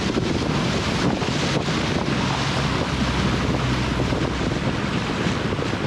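Wind buffeting the microphone and water rushing past a moving speedboat, with a steady low engine hum underneath.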